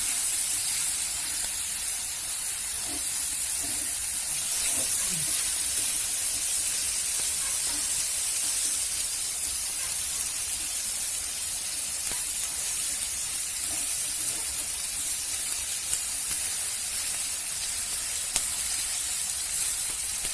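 Boiled grasshoppers and crickets in a wok hissing and sizzling steadily as the last of the water cooks off.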